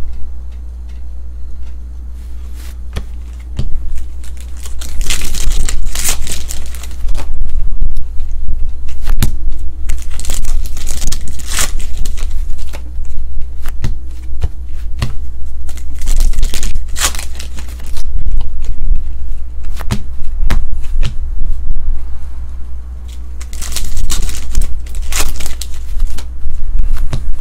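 Trading cards being handled and flipped through close to the microphone: repeated rustles and card clicks, over a steady low hum.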